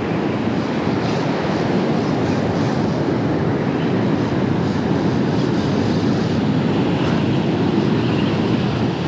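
Steady rushing roar of wind and surf at the shoreline, even in level throughout with no distinct tones or impacts.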